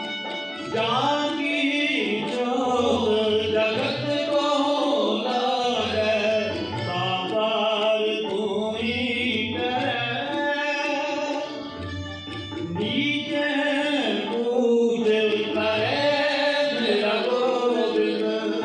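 Sikh kirtan: men singing a devotional hymn to harmonium with tabla keeping the rhythm.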